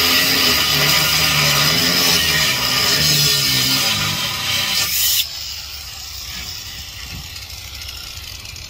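Angle grinder's cutoff disc cutting through the steel shell of a beer keg, a loud hissing grind that stops abruptly about five seconds in. Music plays underneath throughout.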